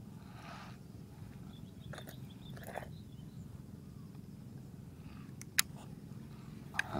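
Handling noise from a baitcasting rod and reel and a snakehead landed on grass: a soft rustle, then a few short clicks, the sharpest about five and a half seconds in. A low steady hum runs underneath.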